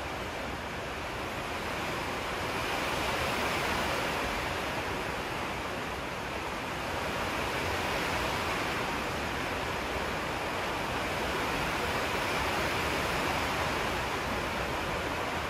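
Steady rushing noise, like air or wind, swelling and easing slightly every few seconds.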